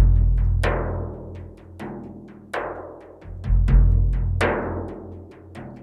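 Background music: a rhythmic percussion track of deep booming drum hits under sharper struck strikes that ring and fade.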